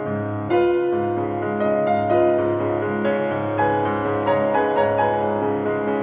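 Gentle instrumental piano music: single melody notes struck every half second or so over held low bass notes.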